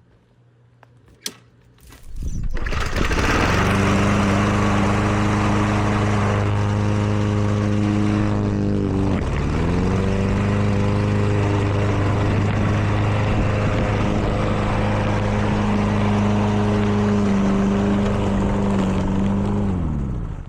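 Lawn mower engine starts about two seconds in and runs loud and steady. It dips briefly in pitch a little under halfway through, recovers, and winds down near the end as it is shut off.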